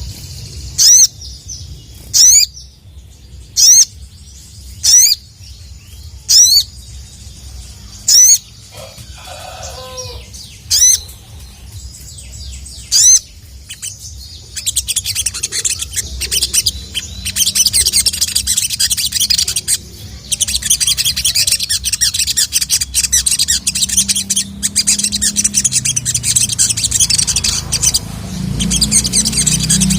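Sogon (sogok ontong) bird calling: a run of short, loud, sharp rising 'cuit' notes about every second and a half, then, about halfway through, a fast continuous high twittering song.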